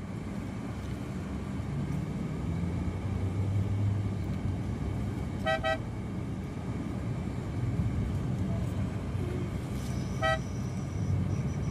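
Steady engine and road rumble inside a moving car's cabin. A short double horn toot sounds about five and a half seconds in, and another brief toot about ten seconds in.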